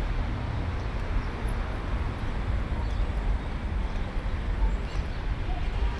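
Outdoor background noise: a steady low rumble with a fainter hiss above it and no distinct events.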